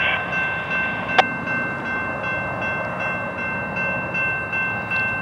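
Railroad grade crossing warning bell ringing steadily while the crossing signals are active, with one sharp click about a second in.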